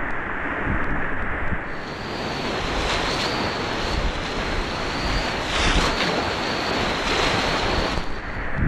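Whitewater rapids rushing and splashing around a kayak's bow as it runs through the waves, with wind buffeting the microphone. The rush grows fuller and brighter about two seconds in and eases near the end.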